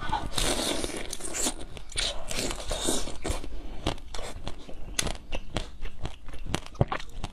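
A person biting into and chewing crunchy food: a steady run of sharp, crackling crunches.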